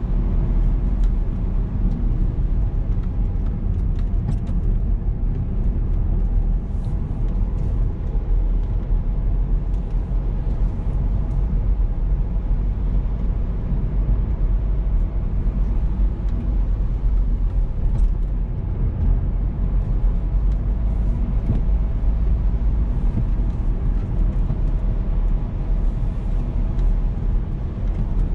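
Car being driven along a road: a steady, low rumble of engine and tyre noise with a faint even engine hum, and scattered faint ticks.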